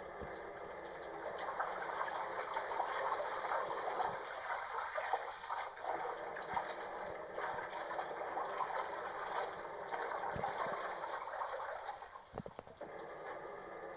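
Running water gushing and splashing steadily while laundry is being done with a washing machine, briefly breaking off about twelve seconds in.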